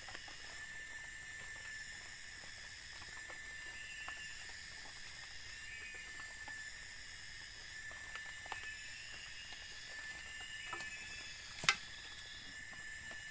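Forest insects droning: a steady high-pitched chorus that swells and fades every few seconds. There are scattered faint ticks throughout and one sharp snap about a second and a half before the end.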